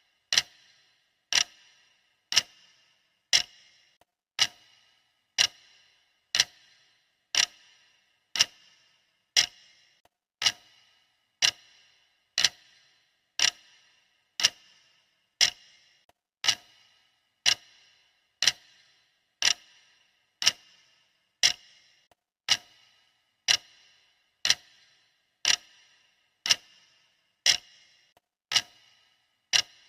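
Clock ticking steadily, one sharp tick each second, each tick with a brief ring.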